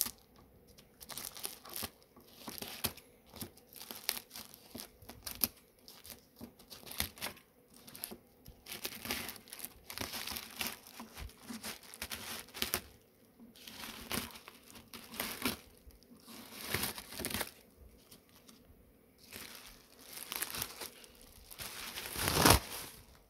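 Plastic bags wrapped around stored honeycomb frames being handled and pulled open, crinkling in irregular bursts, loudest near the end.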